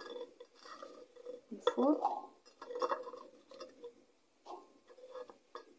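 Shelled fresh fava beans scooped up by hand from a ceramic plate, giving a scattered series of short light clicks and clinks against the plate.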